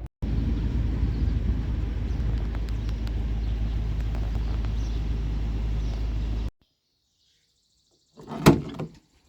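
Steady low vehicle rumble that cuts off abruptly after about six seconds. After a short silence comes a single thunk.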